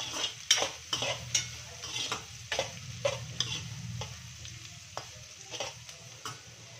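Metal spatula scraping and stirring chopped onion and green chilli frying in oil in a non-stick pan, over a steady sizzle. The strokes come about twice a second and grow sparser and fainter in the last couple of seconds.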